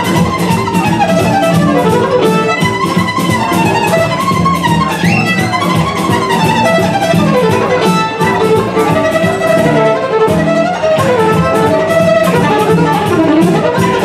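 Violin playing a fast gypsy-style melody with quick runs of notes, over a plucked guitar accompaniment keeping a quick steady beat.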